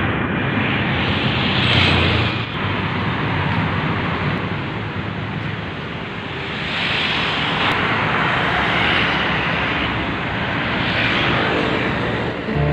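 Motor vehicle engine and road noise, a steady rush that swells and eases several times.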